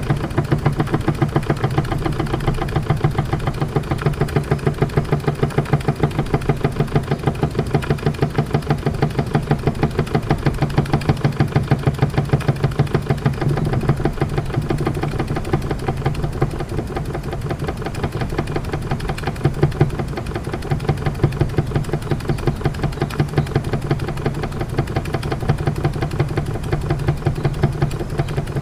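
Meccano toy steam engine, fired by methylated spirit, running steadily, with a regular rapid beat from its cylinder driving the flywheel.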